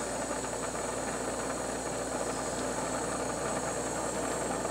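Glassblowing bench torch burning with a steady hiss and low rumble as glass is heated in its flame.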